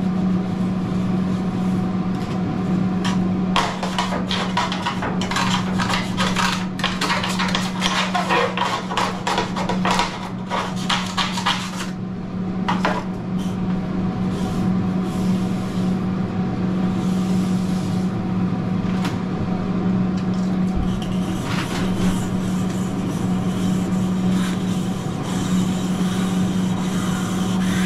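Grill brick scrubbed back and forth across a steel flat-top griddle: a quick, rough rasping of strokes that is busiest from a few seconds in until about halfway, then lighter. Under it runs the steady low hum of the exhaust hood fan.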